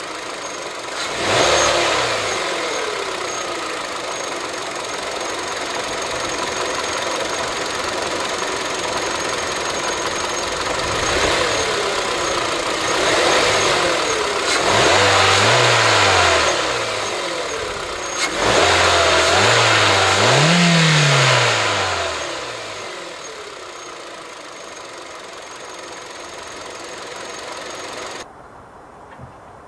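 2013 Kia Cerato's 1.6-litre DOHC 16-valve four-cylinder engine idling and being revved several times. There is a short blip near the start, more rises in the middle, and the longest, highest rev about two-thirds through, each falling back to a steady idle.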